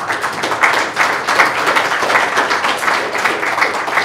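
Audience applauding: a dense patter of many hands clapping at once.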